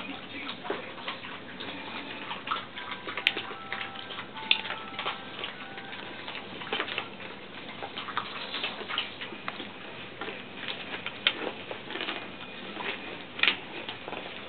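Doodle puppies scuffling and wrestling on towels and a rubber mat: irregular clicks, taps and scratches of claws and paws, with a few faint squeaks about three to five seconds in.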